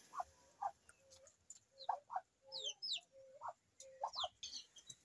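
A faint series of short calls from farmyard poultry, some rising at the end. A few thin, high chirps falling in pitch come around the middle and near the end.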